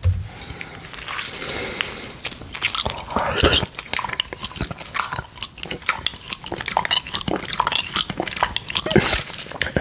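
Close-up mouth sounds of a tongue licking orange juice off a glass plate: a dense run of wet clicks and smacks.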